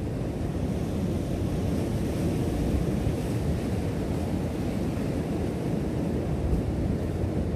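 Ocean surf breaking and washing over a rock shelf, a steady rushing noise, with wind rumbling on the microphone.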